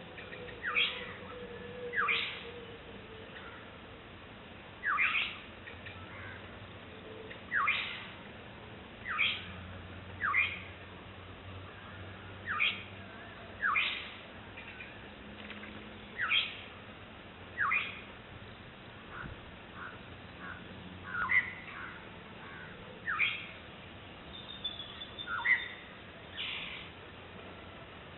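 Black-headed oriole giving short, harsh calls that each slide quickly down in pitch, repeated every second or two: calls to its chick.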